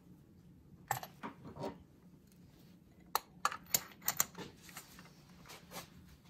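Light, sharp metallic clicks and taps of hand tools (a ratchet and a spark plug socket on an extension) being handled at an engine's spark plug well. A few clicks come about a second in, then a quick cluster of five or six between about three and four and a half seconds.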